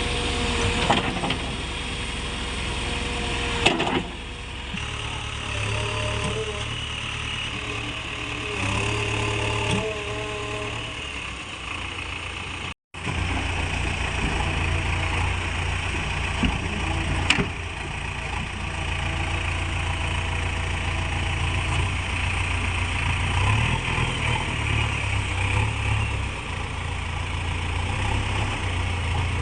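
Heavy diesel engine running, its level rising and falling, with a couple of sharp metallic knocks.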